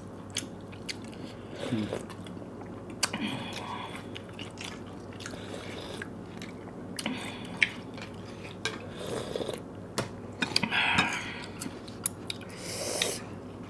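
People chewing and eating momo dumplings, with scattered light clicks and taps of spoons and forks on ceramic plates.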